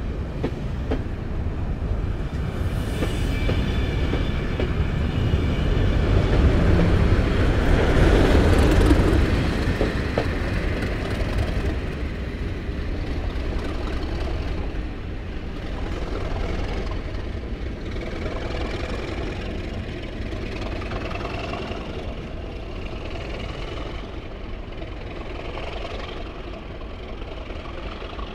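Colas Rail class 37 diesel locomotive hauling a Network Rail test train through the station, with a continuous engine and rail rumble that builds to its loudest about eight seconds in and then slowly fades.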